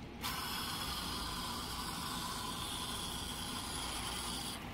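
Spray nozzle on a Lefree expandable garden hose spraying water: a steady hiss that starts a moment in and cuts off suddenly near the end.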